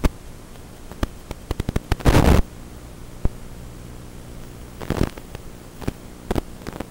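Steady static hiss on an FPV quadcopter's DVR recording, broken by scattered crackling clicks. A short loud burst of noise comes about two seconds in, and another cluster of crackles near five seconds.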